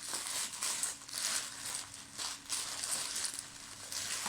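Plastic packaging crinkling in a quick series of short rustles as it is handled.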